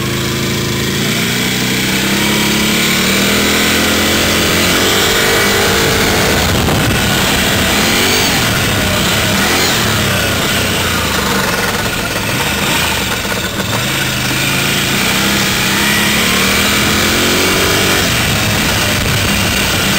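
Can-Am Renegade ATV's V-twin engine running, heard up close: a steady idle, revved up and back down twice, about four seconds in and again in the last third.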